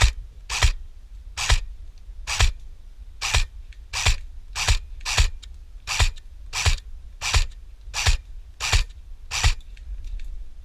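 Footsteps at an even walking pace, each step a short crunch, about fourteen in a row, stopping about a second before the end.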